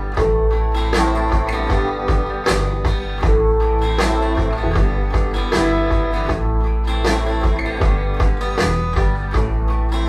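Southern folk music played through Audiolab Symbol two-way bass-reflex tower loudspeakers and heard in the room, with heavy bass.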